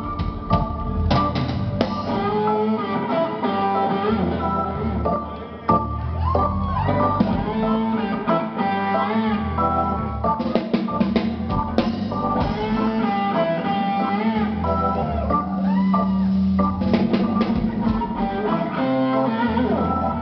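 Live band playing an instrumental passage: drum kit, upright bass, keyboard and electric guitar.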